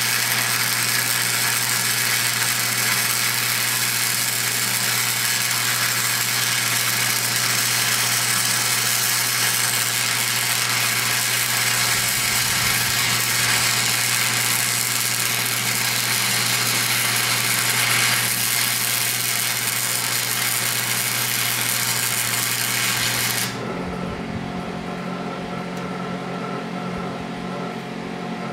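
Flux-core wire-feed welding arc crackling steadily as a bead is laid on a steel log-splitter wedge at about 140 amps. The arc cuts off suddenly near the end, leaving a steady hum.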